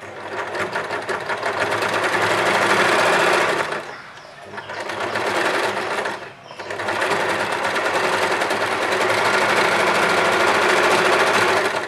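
Usha Janome Allure electric sewing machine running fast, stitching a blind hem along a folded cloth edge. It slows about four seconds in and stops briefly around six seconds, then runs on again.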